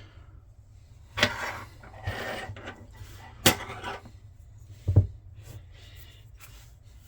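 Padlock parts being handled on a work surface: about four sharp clicks and knocks of hard objects, the last one heavier, with brief scraping in between.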